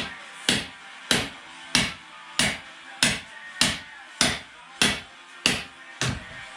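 A regular series of about eleven sharp strikes, evenly spaced at roughly one every 0.6 s, each with a short ringing tail, over faint steady sustained tones.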